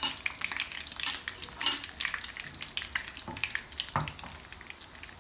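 Minced-meat chapli kabab shallow-frying in hot oil in a frying pan, sizzling with frequent sharp pops and crackles. The crackling is busiest in the first two seconds and thins toward the end.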